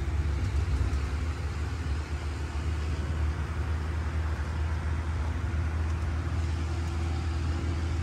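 Engine of a small tourist road train running steadily while riding, heard as a continuous low hum.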